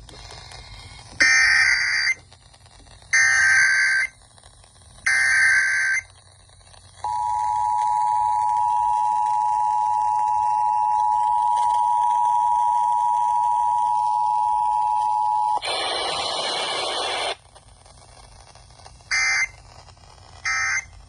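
Emergency Alert System alert tones: three short screeching digital header bursts about a second apart, then the steady two-tone attention signal held for about eight and a half seconds. A second and a half of noise follows, then two short end-of-message bursts near the end.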